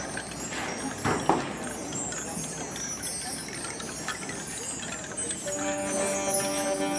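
A marching band's show opening: a quiet stretch with faint light percussion, then about five and a half seconds in the band comes in with a sustained chord of several held notes.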